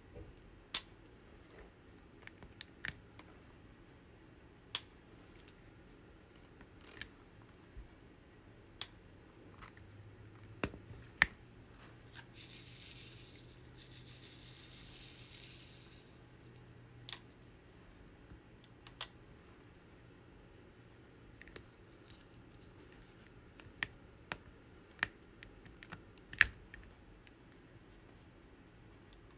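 Sporadic light clicks and taps of diamond painting work, a drill pen and round resin drills being handled, with two sharper taps about a third of the way in and near the end. About halfway through, a soft hiss lasts some four seconds.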